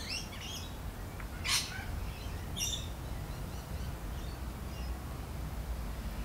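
Garden birds chirping: a few short high calls in the first three seconds, fainter chirps after, over a steady low rumble.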